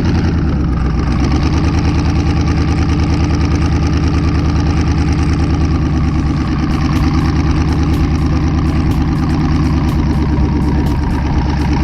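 Twin-turbo LS V8 engine running loud, held at steady, unchanging revs under throttle while the car is stuck in snow.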